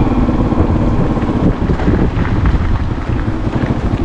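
Motorbike engine running while being ridden, with wind buffeting the microphone.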